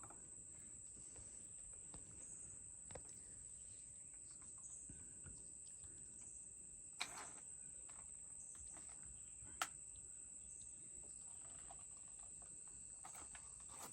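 Steady high-pitched insect chorus, with two faint clicks about seven and nine and a half seconds in.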